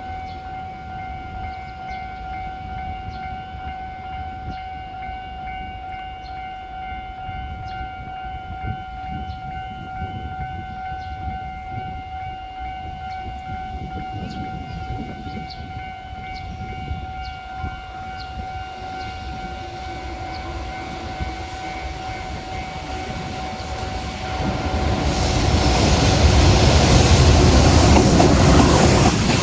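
A level-crossing warning signal sounds a steady tone while an EH500 electric locomotive hauling a container freight train approaches. The train's rumble grows loud near the end and drowns out the signal.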